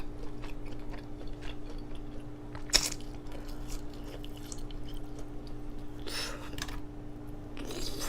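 Close-up chewing of hot Cheeto–crusted chicken and mozzarella, with many small crisp crunches and one loud crunching bite about three seconds in.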